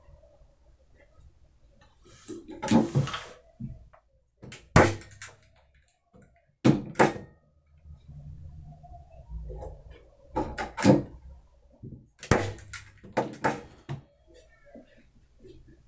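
Manual staple gun firing staples through linen canvas into a wooden stretcher frame: five sharp double clacks a second or two apart, after a longer rustle of the linen being pulled taut.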